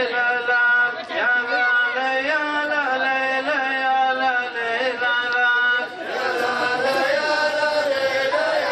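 A man's voice chanting a wordless Arabic poem melody in long, drawn-out notes that glide between pitches. About six seconds in the sound grows fuller.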